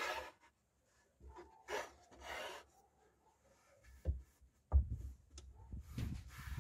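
A carpet-covered plywood fold-out panel being handled: a few short rubbing, brushing sounds of hands and carpet against wood, then from about four seconds in a run of dull low thumps and knocks as the panel is pressed down onto its plywood support.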